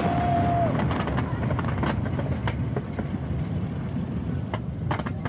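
Fireworks display: scattered sharp pops and crackles of bursting shells, thinning out toward the end, over a steady low rumble. A held whistle cuts off within the first second.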